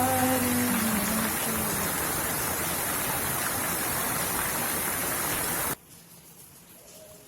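Heavy rain pouring, a steady hiss that cuts off abruptly near the end. Soft background music with a held sung note fades under it in the first second.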